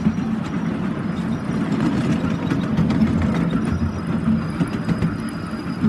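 Miniature railway train running along its track, heard from a passenger car: a steady low rumble of the wheels and locomotive, with occasional light clicks.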